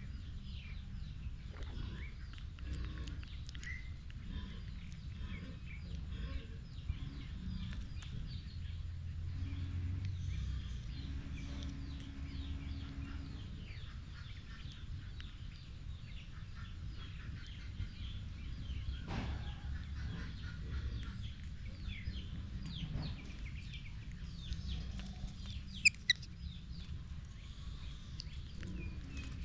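Outdoor ambience of many short, high bird chirps over a steady low rumble, with one brief, sharp high-pitched call about 26 seconds in.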